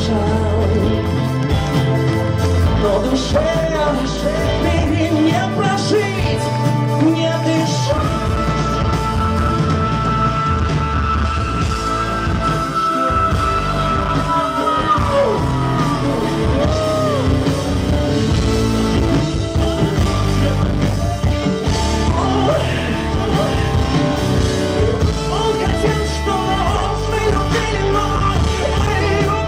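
Male singer performing a pop-rock song live with a band, loud through the hall's PA, with a long held note in the middle.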